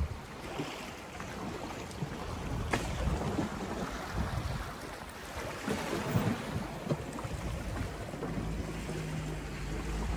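Wind on the microphone over small sea waves lapping a pebbly shore, with a sharp click nearly three seconds in. A low steady hum comes in near the end.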